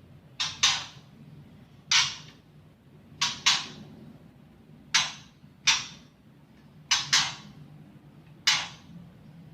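Caged songbird giving short, harsh chattering calls, about ten in all and some in quick pairs, spaced roughly a second apart.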